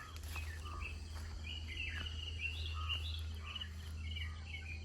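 Birds chirping in the early morning: many short, repeated chirps over a steady low rumble.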